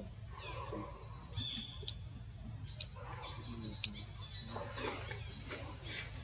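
Macaque squeaking: several short, very high-pitched calls, with a few sharp clicks in between.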